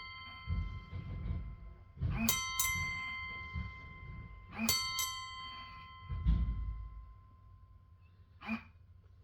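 A small metal bell on a tombstone rung in two quick pairs of strikes, about two seconds in and again near the middle, each ringing on and slowly fading. Low rumbling noise runs underneath, and there is a short click near the end.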